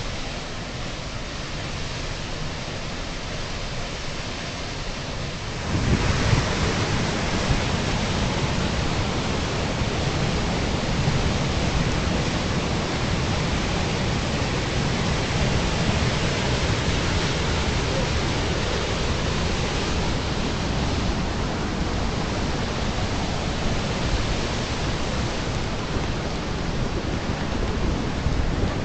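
Steady rush of a waterfall and whitewater rapids, with no pauses; it grows louder and fuller about six seconds in.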